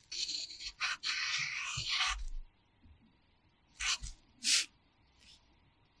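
Pencil scratching on notebook paper as characters are written: a run of longer scratchy strokes for about two seconds, then a few short quick strokes.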